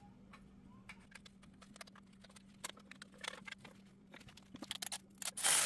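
Light, scattered metallic clicks and taps as a brake dust shield is fitted and its 10 mm bolts started on the Jeep's front steering knuckle, coming faster near the end and finishing with a short, louder rasp.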